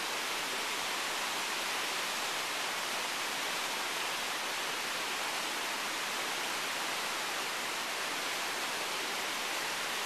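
Steady, even rushing hiss of outdoor background noise that does not change, with no distinct gulps, clicks or other separate sounds.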